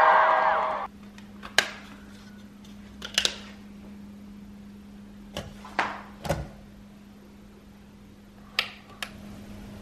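Loud live-concert sound cuts off about a second in, leaving a quiet room with a steady low hum and a handful of scattered sharp clicks and knocks.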